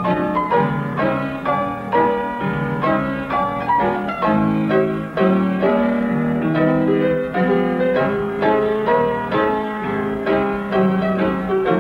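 Piano music with a brisk, steady stream of short notes, a silent-film accompaniment.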